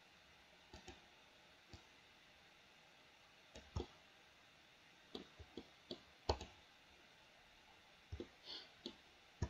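Faint, irregular clicks of a computer mouse and keyboard being worked, about a dozen, some in quick pairs, over a low steady hiss.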